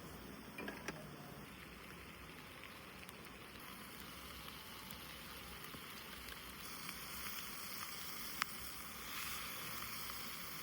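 Steady rushing outdoor background noise with a few light clicks near the start and one sharp click about eight seconds in.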